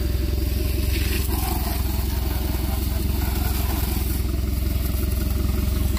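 An engine running steadily with a fast, even low drone, under the hiss of a hose spraying water onto a fibreglass boat hull and its trailer.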